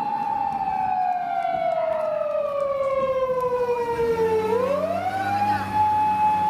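Japanese police car siren wailing: one held tone that slides slowly down by nearly an octave, then sweeps quickly back up and holds.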